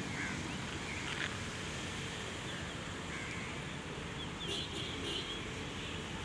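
Steady outdoor background noise with a few faint, short bird calls.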